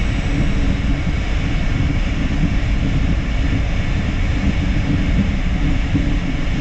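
Steady cockpit noise of an Embraer Phenom 300E taxiing with its twin turbofan engines at idle. A deep rumble carries faint steady high whines over it.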